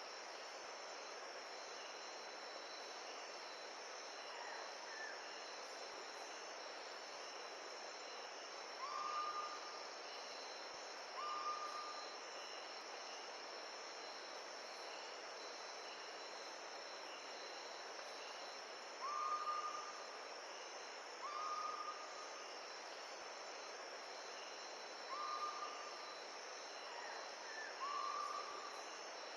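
Steady outdoor wind-and-surf hiss with insects trilling constantly in the high range. A short, flat whistled animal call sounds six times, in pairs a couple of seconds apart.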